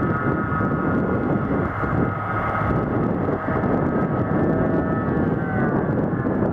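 John Deere 8800 self-propelled forage harvester chopping grass and blowing it into a trailer towed alongside by a tractor. It makes a steady high whine of several tones over a deep, even engine rumble.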